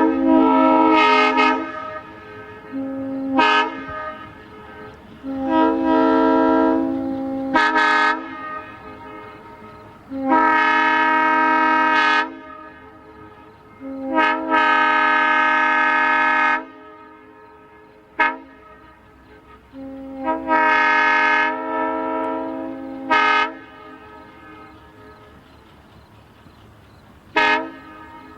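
Nathan M3 three-chime locomotive air horn blown over and over, a chord in long blasts of two to three seconds with short toots in between.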